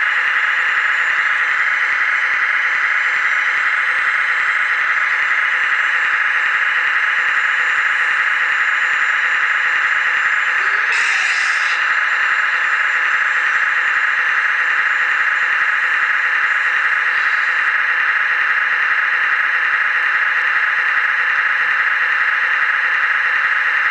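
A small electric motor on an RC hydraulic model whining steadily at a high, unchanging pitch, with a brief, sharper noise about eleven seconds in.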